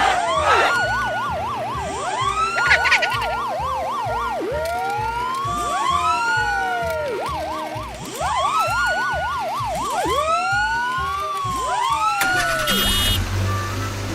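Emergency-vehicle sirens sounding together: slow wails that rise and fall, overlapping a fast two-tone yelp, over a steady low beat. The sirens die away about thirteen seconds in, leaving a low hum.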